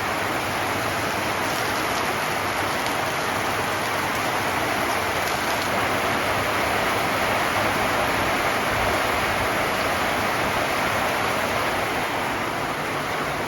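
Heavy rain pouring down on a roof, a loud, steady hiss.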